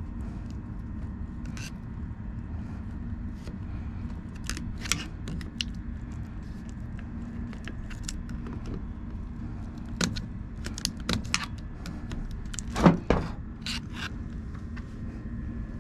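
Metal parts of a Copeland semi-hermetic compressor clinking and scraping as it is taken apart by hand: scattered short clinks, the sharpest about 13 seconds in. A steady low rumble runs underneath.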